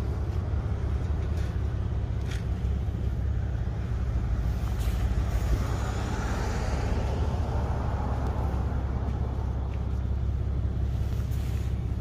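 Outdoor harbour-quay ambience: a steady low rumble, with a broad swell of noise from about four seconds in that fades by about eight seconds, and a few faint clicks.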